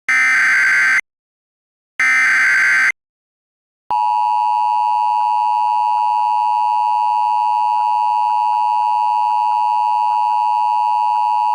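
Emergency Alert System SAME header: two buzzy digital data bursts of about a second each, a second apart, ending the three-burst header. About four seconds in, the steady two-tone EAS attention signal starts and holds, announcing that an alert message follows.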